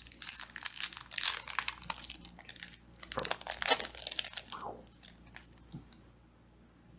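Foil booster pack wrapper being torn open and crinkled by hand, a dense crackling that dies away about five seconds in.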